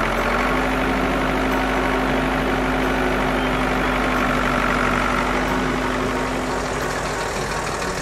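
Engine sound effect of a vehicle running steadily at idle, with a steady low hum that fades near the end.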